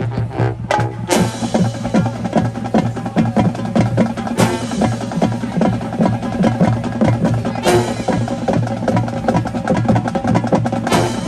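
Marching band percussion section playing a fast drum passage over a steady low bass note, with a cymbal crash about every three seconds.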